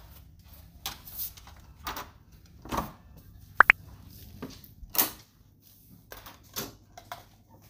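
Scattered soft knocks and rustles of a hand-held phone being carried on the move. A sharp double click about three and a half seconds in is the loudest sound.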